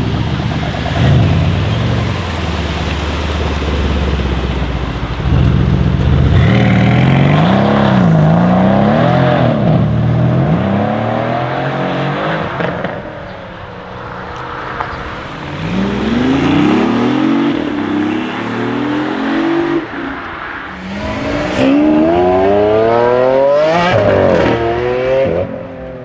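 Brabus 700-tuned Mercedes-AMG C63 S Estate's twin-turbo V8 rumbling at low revs as it pulls away, then accelerating hard several times. Its pitch rises in repeated sweeps and drops back at each gear change, with a quieter lull in the middle.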